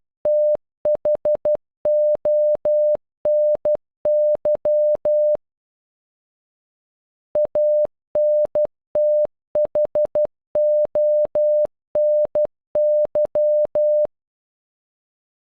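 Morse code for "Anthony" (.- -. - .... --- -. -.--) sounded as short and long beeps of a single steady mid-pitched electronic tone. The first run ends about five seconds in, and after a two-second pause the whole word is beeped again.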